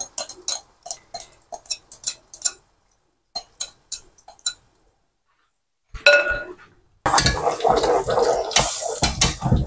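A small whisk taps and clinks rapidly against a glass bowl as the last of the beaten egg is knocked out into the pot. After a short break, beaten egg fries in hot oil in a steel pot from about seven seconds on, sizzling as it is stirred with a wooden spoon.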